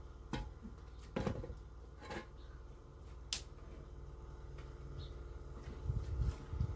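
A few sharp knocks as a hollow concrete block is handled and set down on the hard dirt ground, then dry sticks and twigs clattering and thudding as they are laid together for a fire near the end.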